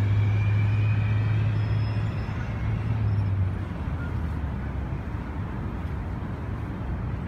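A truck engine idling with a steady low hum. The hum fades out about three and a half seconds in, leaving traffic and street noise.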